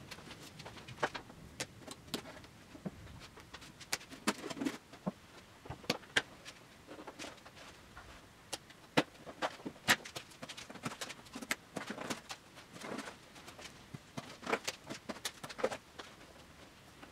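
Irregular clicks and knocks of hand work on a workbench: quick-release bar clamps being taken off and set down, and the wooden octave mandolin body being moved and handled. The knocks come in loose clusters, several a second at the busiest.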